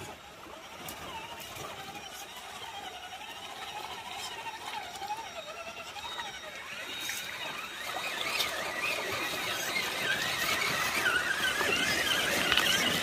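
Whine of an RC Traxxas Summit truck's electric motor and geared drivetrain, its pitch wavering up and down with the throttle. About two-thirds of the way in it jumps higher and grows louder as the truck drives through the water toward the microphone.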